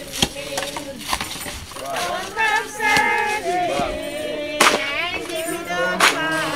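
A congregation singing a gospel song together, with mixed male and female voices growing fuller about two seconds in, and a few sharp hits scattered through it.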